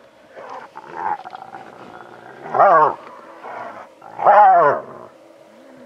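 Spotted hyena calling: two loud, drawn-out calls about two seconds apart, each rising and then falling in pitch with a wavering tone, with fainter calls between them.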